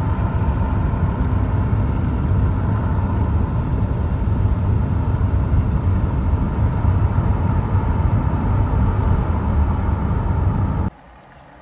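Car driving in a road tunnel, heard from inside the cabin: a steady, loud low rumble of engine and tyres that cuts off suddenly near the end.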